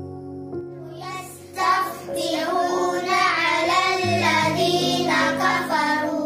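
A child's voice chanting Qur'an recitation in a melodic, wavering line, starting about a second in, over soft sustained background music chords.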